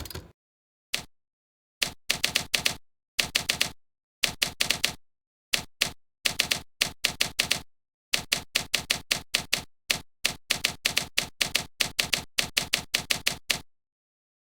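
Typewriter keys struck in quick bursts of about eight clicks a second, the runs of typing broken by short pauses.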